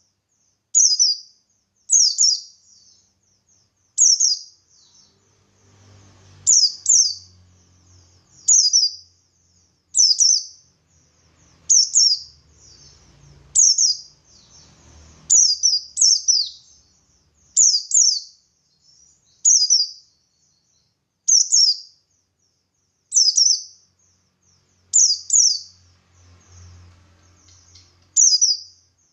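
Buxtoni white-eye (pleci) singing steadily: short, sharp, high phrases that slur downward, repeated about every second and a half, with soft twittering in between.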